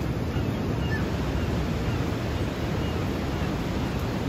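Sea surf breaking and washing in on the beach in a steady rush, with wind buffeting the microphone.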